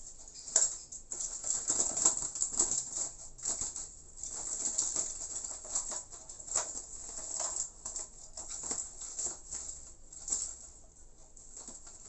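A spotted dove flapping its wings and scrabbling inside a bamboo cage as a hand reaches in to catch it: irregular flurries of fluttering and rustling that ease off near the end.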